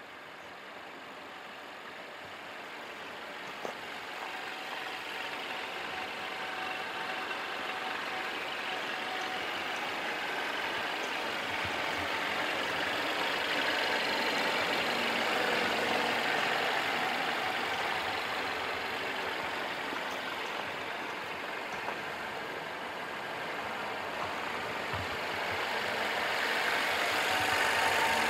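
The 2017 Mercedes-Benz E200's M274 2-litre turbocharged inline-four idling steadily, getting gradually louder over the stretch.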